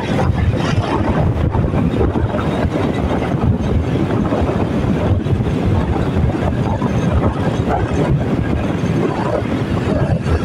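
Steady wind rushing and buffeting against the microphone of a camera on a moving motorbike, with the bike's running and road noise underneath.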